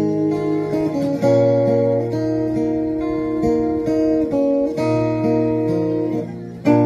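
Acoustic guitars playing an instrumental passage, with ringing chords and picked notes that change every half second or so. There is a strong strum about a second in and another near the end.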